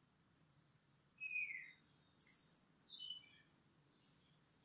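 Bird chirping: one short falling note a little over a second in, then a quick run of high falling chirps about two seconds in.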